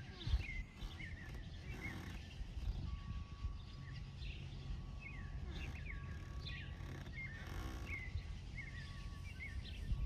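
Small songbirds chirping over and over, short high downward-sweeping chirps in quick runs, over a low steady rumble of lake water lapping at a pier.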